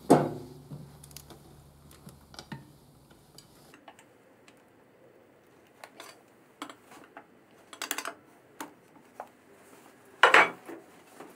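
Hand tools and metal parts clinking and knocking now and then, with a sharp knock at the start and louder clatters about eight and ten seconds in, as stiff motorcycle carburettors are worked loose.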